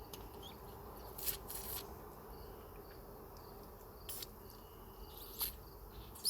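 A honeybee colony buzzing steadily from an open hive, with a few brief clicks or scrapes.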